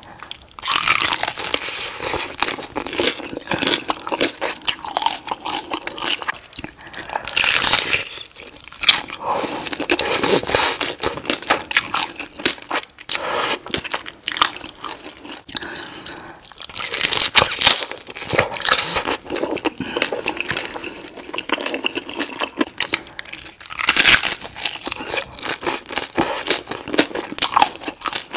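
Bites into crispy, cheese-crusted birria tacos: a loud crunch every few seconds, with chewing in between.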